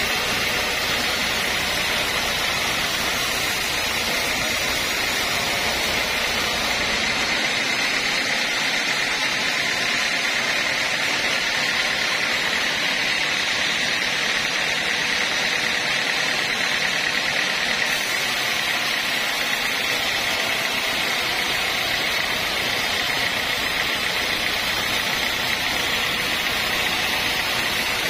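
Homemade band sawmill running steadily, its band blade sawing a mahogany beam into boards: an unbroken high whine over a steady hiss.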